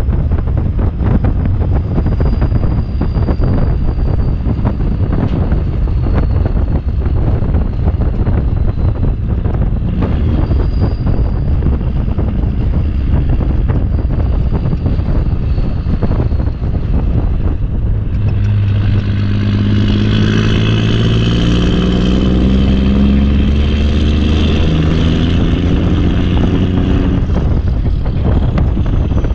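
Backhoe engine running with wind buffeting the microphone. About two-thirds of the way through, the engine climbs to higher revs for several seconds, its pitch wavering, then drops back.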